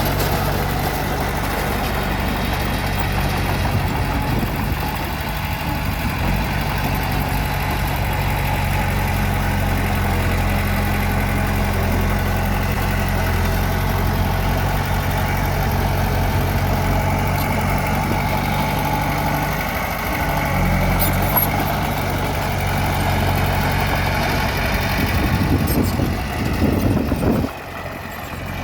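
Diesel engine of a crawler bulldozer running steadily, with a short break in the sound near the end.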